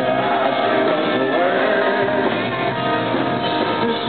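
Live rock band: a male lead singer over electric guitar.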